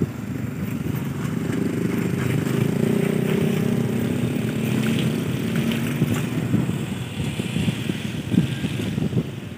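Passenger train running away down the track: a low rumble of steel wheels on the rails with a dense run of clicks and clacks, easing slightly near the end.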